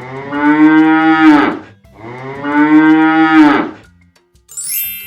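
Cow mooing twice, two long calls with a short gap between them. A bright chime rings out near the end.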